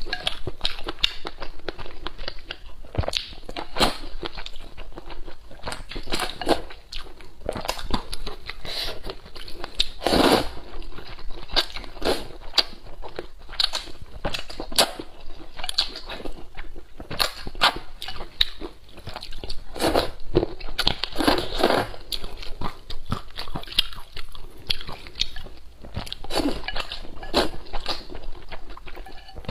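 Close-miked slurping and chewing of sweet potato glass noodles in hot and sour soup, with a constant run of wet, smacking mouth clicks and a louder slurp about ten seconds in.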